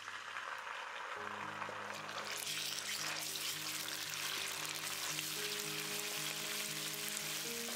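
Chili bean paste (doubanjiang) sizzling as it fries in hot oil in a wok while it is stirred with a wooden spatula. The sizzle grows stronger after about two seconds, as the paste cooks down to release its red oil. Soft background music comes in about a second in.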